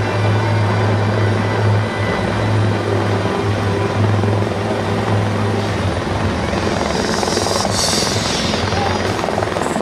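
RACQ CareFlight rescue helicopter hovering low overhead: a steady rotor and turbine drone with a strong low hum that weakens about six seconds in.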